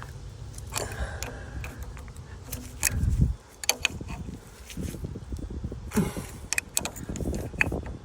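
Wrench clicking and metal clinking while a backhoe's hydraulic hose fittings are tightened, with a low thud about three seconds in.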